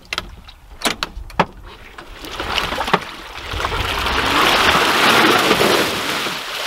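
Lifted golf cart on off-road tyres churning through a mud hole. A few sharp knocks and splats come in the first second and a half, then a rising wash of spinning tyres and slinging mud, loudest about five seconds in, as the cart bogs down and gets stuck.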